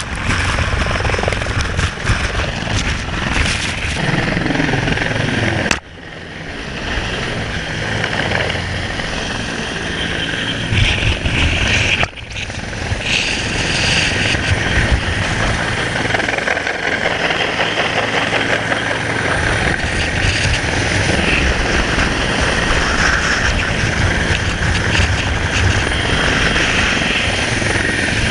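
Helicopter rotor and engine noise, loud and steady, briefly cutting out twice.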